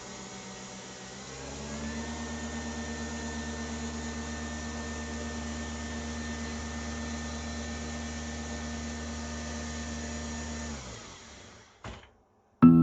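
Electric motor whirring steadily. About a second and a half in it steps up in pitch and loudness. Near the end it winds down and stops, followed by a single click.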